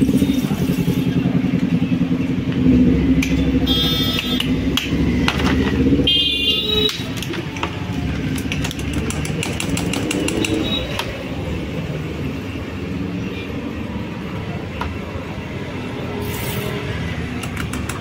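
A motor runs steadily underneath everything. Soda water hisses from a fountain tap into a glass at the start, a few clinks follow, and about nine seconds in a spoon rattles quickly against the glass as the drink is stirred.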